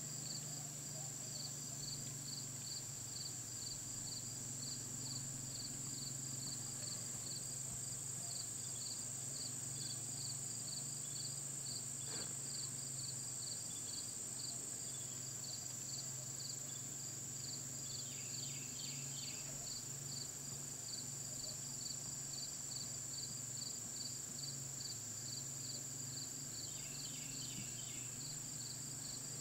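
Insects calling: a steady high-pitched trill with a regular chirp about twice a second over it. Two short clusters of extra chirps come in during the second half.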